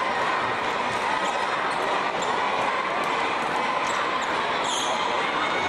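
Steady crowd din filling an indoor sports hall, with no pauses.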